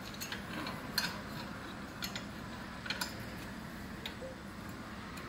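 Small metallic clicks and clinks, about five of them spread over a few seconds, as a car horn is turned by hand in its steel mounting bracket.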